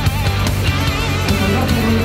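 Rock music soundtrack with guitar over a steady beat.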